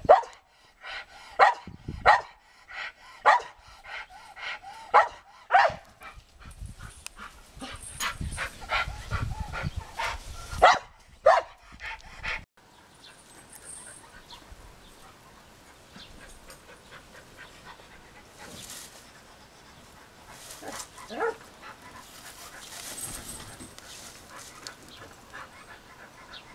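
A dog barking: short, sharp barks about once a second for the first twelve seconds, with a low rumble around eight to ten seconds in, then only a few fainter, scattered barks.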